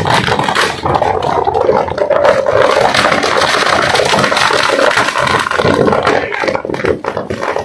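Seized firecrackers burning in a storeroom fire: a steady, loud clatter of rapid crackling and popping over the noise of the blaze.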